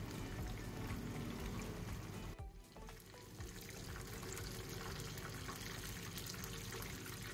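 Hot oil sizzling and crackling in a frying pan, briefly cutting out about two and a half seconds in, under soft background music.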